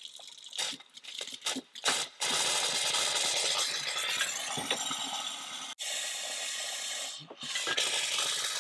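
Kitchen faucet sputtering and spitting a mix of water and compressed air into a stainless steel sink while the RV's water lines are blown out. A few separate spurts come first, then a steady hiss of air and spray from about two seconds in, dipping briefly twice: the line is emptying of water.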